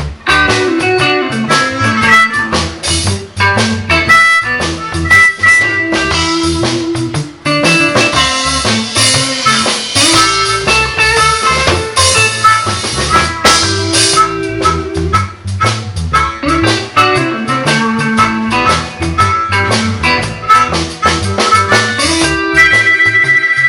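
Live blues band playing, with harmonica, electric guitar and drum kit; a harmonica holds a long high note near the end.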